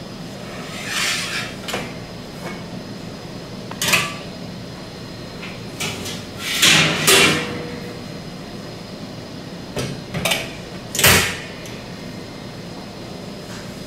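Stainless-steel chocolate guitar cutter and its wire frame being handled: several separate metal clanks and knocks, the loudest near the end.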